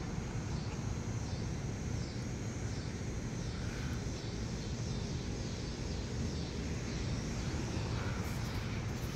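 Outdoor ambience: a steady low rumble, with a faint high-pitched buzz pulsing about twice a second.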